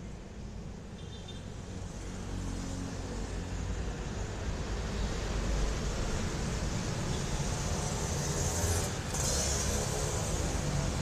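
Motor vehicle rumble with road noise, growing louder over the first few seconds, and a brief hiss near the end.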